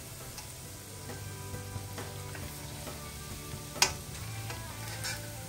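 Pork cubes sizzling and frying in hot oil in a stainless steel wok, with one sharp clink of the slotted spatula against the wok a little under four seconds in. Soft background music comes in about a second in.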